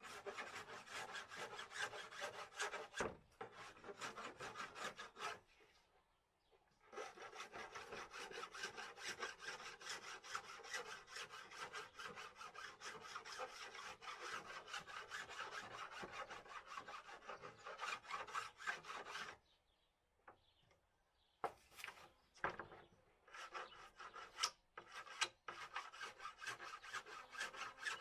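Hand filing or sanding strokes on the edge of an aluminium composite panel, rapid and back-and-forth, in three long runs with short pauses around 5 seconds in and 20 seconds in.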